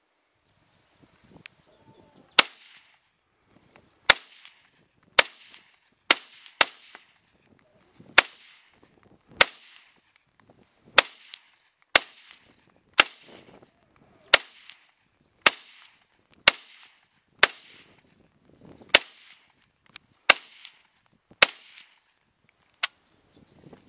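Yugoslav SKS semi-automatic rifle fired in a rapid string: about seventeen sharp shots at roughly one a second, each followed by a short echo.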